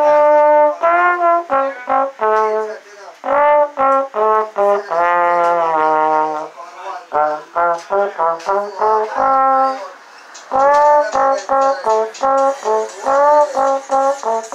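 Solo slide trombone playing a melody: a held note at the start, then phrases of short separate notes, some scooped up into pitch, with brief breaks between phrases.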